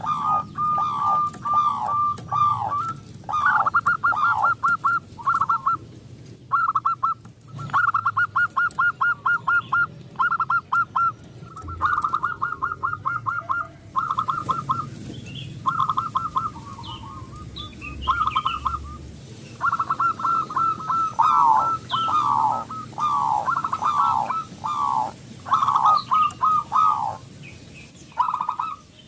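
Zebra dove (perkutut) singing: phrases of rapid staccato coo notes, some falling in pitch, repeated with short pauses. Faint chirps from other small birds sit behind it.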